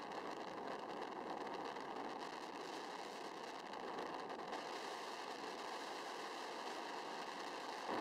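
Steady rushing tyre and wind noise from a velomobile rolling along a paved road at cycling speed.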